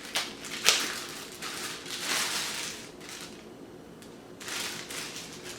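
Packaging rustling and crinkling as the robot vacuum's charging dock is unwrapped and handled, with a sharp snap about a second in and further bursts of rustling later on.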